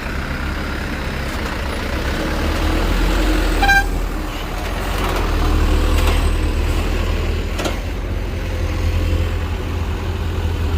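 Heavy vehicle's diesel engine running under load with a steady low rumble, and a short horn toot about a third of the way through.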